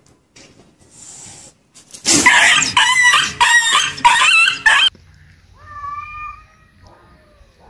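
A loud animal call lasting about three seconds, made of several quick joined segments, followed about a second later by a fainter, shorter call that rises and falls in pitch.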